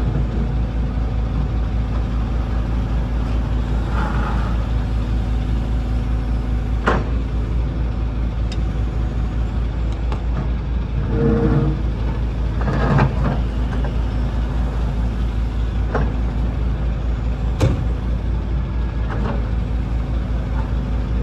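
Excavator's diesel engine running steadily, with a few sharp clanks and knocks scattered through.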